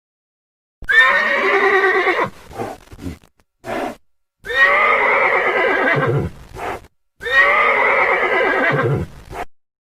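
Horse whinnying three times, each call about two seconds long starting with a quick upward sweep and trailing off into a short lower sound, with abrupt silence between the calls.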